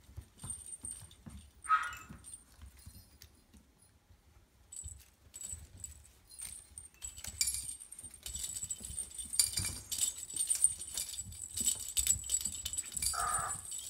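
Maltese puppies playing among hanging toys: jingle-bell balls and toys rattling and clinking, sparse at first and busy from about halfway on. A brief high puppy yip about two seconds in.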